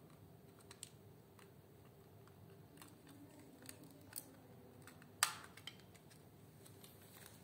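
Small screwdriver prying at a white plastic remote-controller box: faint scattered plastic clicks and scrapes, with one sharper click about five seconds in as the cover comes off.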